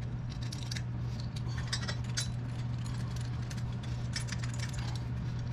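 Light metallic clicking and clinking of bolts and hand tools as an exhaust pipe is bolted on, in bunches about one to two seconds in and again around four seconds, over a steady low hum.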